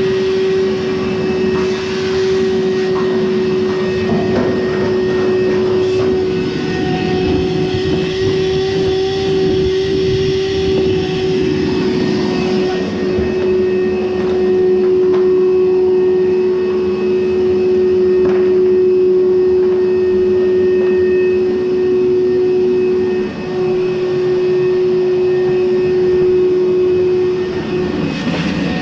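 An electric motor running steadily at full speed: a loud, even whine over a rushing hum, with a brief dip in level about two-thirds of the way through.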